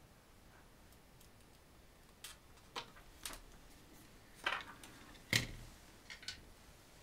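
A scattering of light clicks and taps as a circuit board and small parts are handled on a wooden workbench. The loudest, a knock with a dull thud, comes about five seconds in as the board is set down on the bench.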